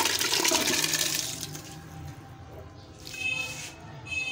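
Boiled chana dal and its cooking water poured into a pressure cooker of chicken masala, a splashing, running pour that fades after about a second and a half. Two short ringing tones follow near the end.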